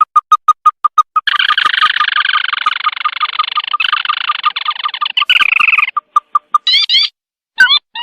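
Recorded crake (tikusan) call played as a bird lure. A quick run of short piping notes at about five a second runs into a dense rattling trill lasting about five seconds, then breaks into separate notes, with a few rising squeaky calls near the end.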